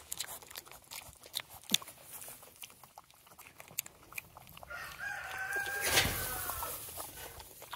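Dry straw crackling and rustling as piglets root and step close by, then about five seconds in a rooster crows once, a drawn-out call of roughly two seconds that is the loudest sound here.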